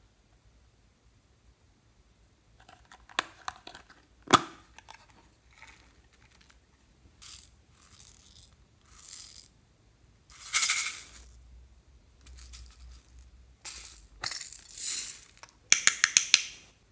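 Small hard plastic toys and cases handled over a glass bowl of beads: scattered clicks and taps, short scraping rustles, and a quick run of sharp clicks near the end.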